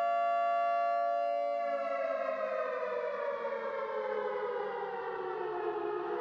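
Outdoor warning siren wailing to signal the curfew: the tone holds steady at first, then falls slowly in pitch for about four seconds and begins to rise again at the very end.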